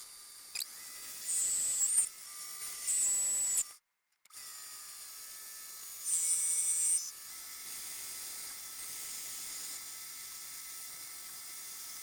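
Mini lathe running under a light finishing cut on metal stock: a steady motor whine and hiss, with a high-pitched cutting hiss that rises three times, about a second in, near three seconds and near six seconds. The sound drops out completely for a moment just before four seconds in.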